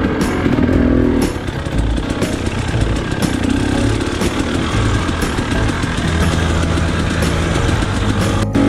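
KTM XC-W enduro dirt bike engine on the throttle, its pitch rising and falling as the revs change, with a few short knocks mixed in.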